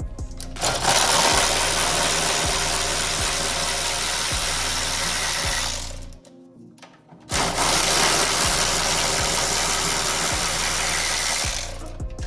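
A power tool runs in two long bursts of about five and four seconds with a short break between, over background music with a steady beat.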